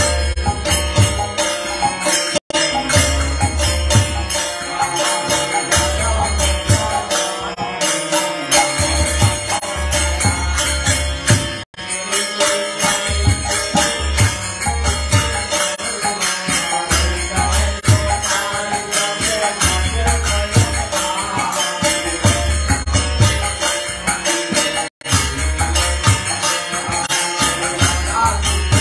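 Devotional kirtan: a man singing a chant to his own harmonium accompaniment, with jingling percussion and a repeating low beat. The sound cuts out for an instant three times.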